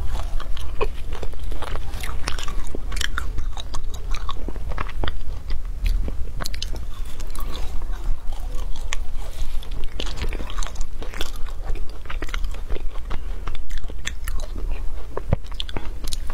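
Frozen matcha ice being bitten and crunched, then chewed, close to a clip-on microphone: a dense, irregular run of sharp cracks and crackles.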